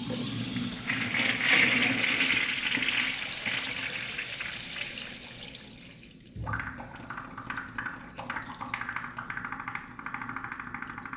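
Kohler toilet flushing: a rush of water that fades over about six seconds. About halfway through, a quick, bubbly gurgling sets in and keeps going as the bowl drains.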